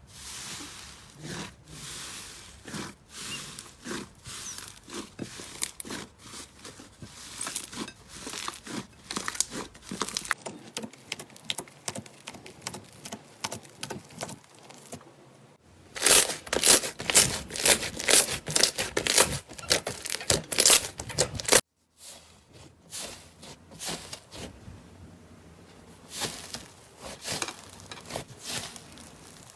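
Slime being squeezed, stretched and poked by hand, giving dense runs of crackling and clicking pops. The sound shifts at cuts about 10, 16 and 22 seconds in, and is loudest and densest between about 16 and 22 seconds.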